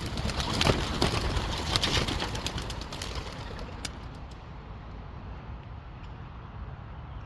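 A basket of young racing pigeons taking off together, wings clapping and flapping in a rapid rustling clatter. It thins out and fades after about three or four seconds as the flock leaves. A steady low rumble lies underneath.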